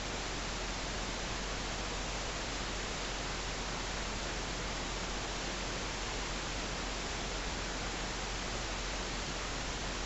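Room tone: a steady, even hiss with a low hum underneath and no distinct sounds.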